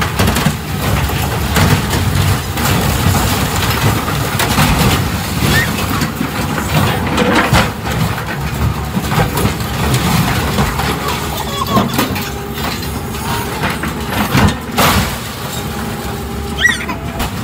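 Heavy diesel machinery running while a grapple claw tears apart a school bus, with crunching and crashing of sheet metal and several loud impacts as the body is lifted and dropped.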